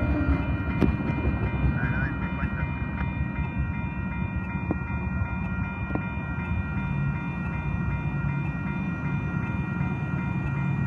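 Freight train rumbling as it rolls away from a level crossing, its sound easing slightly, while the crossing's warning bell rings steadily over it.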